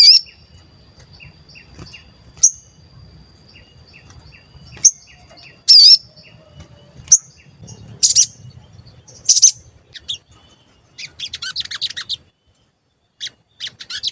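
Sogon bird calling with sharp, high 'cuit' chirps about once a second over a thin steady whistle. A rapid chattering run of notes comes about eleven seconds in, and more quick notes follow near the end.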